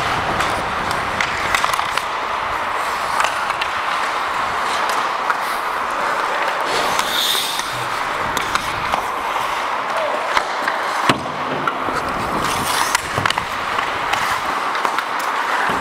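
Ice hockey play heard up close: skate blades hissing and scraping on the ice, with frequent sharp clacks of sticks and puck and one loud crack about eleven seconds in.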